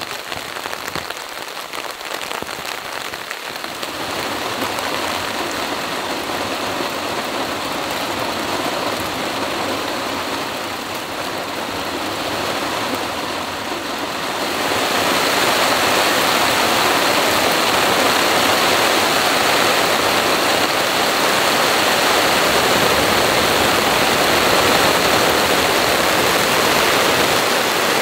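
Heavy rain pouring steadily, getting louder and brighter about halfway through.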